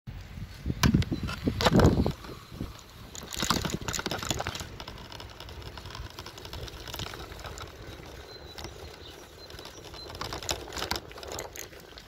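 Rustling and wind rumble on a handheld camera carried on a walk: heavy buffets about one to two seconds in and again around three to four seconds, then a steadier hiss with many small clicks.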